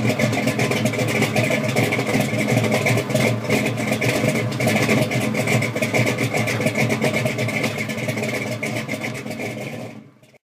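A car engine running steadily with a rapid pulsing exhaust, fading out near the end.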